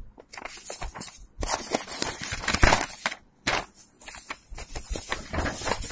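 Paper pages of printed notes rustling and crinkling as they are handled and turned, in irregular bursts with a couple of brief gaps.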